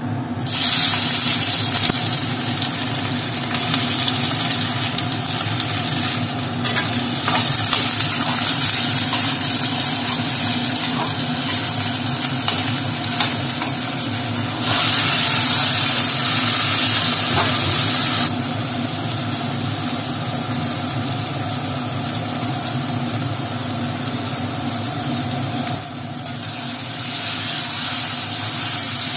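Food sizzling and frying in a hot pan: a steady hiss over a low hum, louder for a few seconds in the middle.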